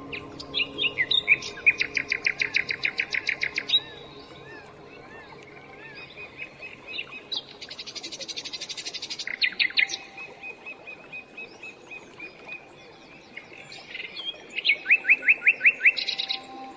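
Songbird singing: fast trills of down-slurred notes, about eight a second, a buzzy phrase in the middle with a held high note, and another short trill near the end.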